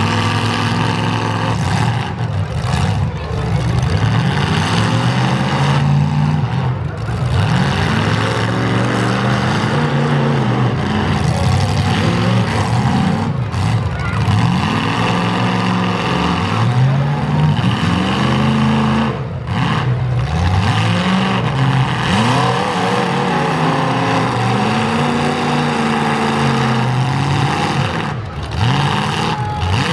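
Modified full-size demolition derby cars' engines revving hard over and over, the pitch climbing and dropping every second or two as the cars shove against each other.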